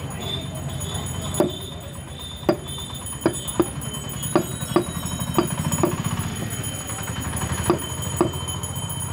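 Butcher's cleaver chopping mutton on a wooden chopping block: about a dozen sharp, irregularly spaced strikes, each with a brief ring.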